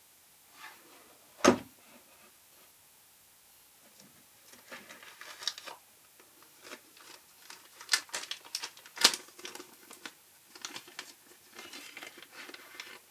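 Packaging and parts of a camera filter kit handled by hand: crinkling and rustling with scattered light clicks, and two sharp knocks, one about a second and a half in and a louder one about nine seconds in.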